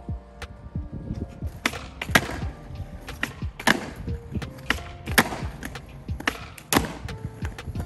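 Skateboard wheels rolling on concrete under a music track. The track's beat lays sharp drum hits in a steady pattern over the rolling, about every second and a half.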